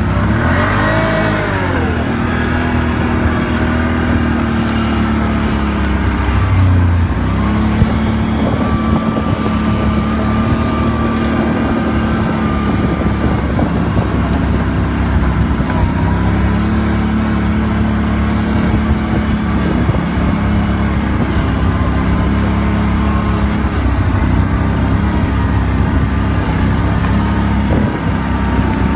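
Can-Am Outlander ATV engine running while the machine is ridden, its pitch sweeping up and down with the throttle in the first couple of seconds, then holding mostly steady with a few rises and drops.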